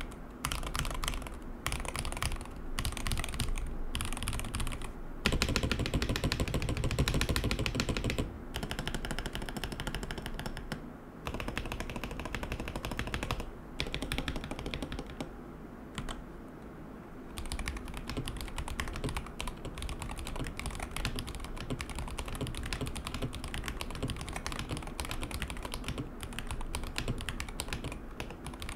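Typing on an MCHOSE Jet75 mechanical keyboard with Kailh God switches: fast runs of keystrokes with short pauses, the clacks heavier for a few seconds after about five seconds in and softer around the middle.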